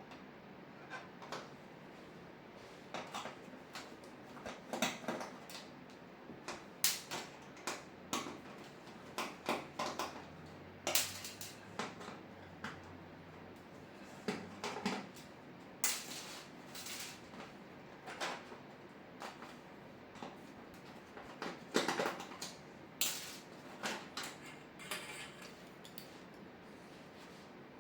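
Irregular light clicks, clinks and taps of hard parts being handled while LED backlight strips are taken out of and worked on inside an opened LCD TV.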